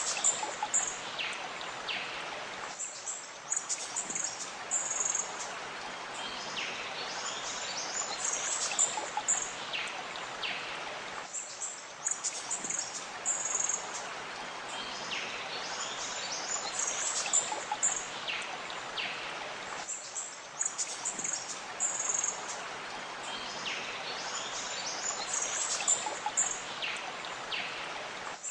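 Looped nature ambience: many small birds chirping and twittering over a steady rush of flowing water. The same stretch repeats about every eight and a half seconds.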